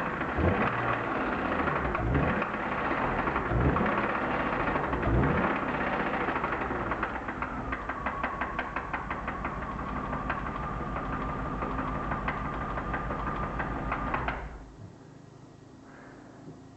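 BMW M52B25 inline-six running with one ignition coil unplugged, a fast steady knocking tick through it; it is revved briefly four times, then idles, and is switched off about fourteen seconds in. The knock does not change with the coil off, which makes the owner doubt a rod bearing failure.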